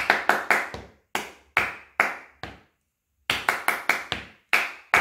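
Hands clapping a rhythm exercise: a quick run of four claps followed by slower, spaced claps, the pattern played twice with a short pause before the second time.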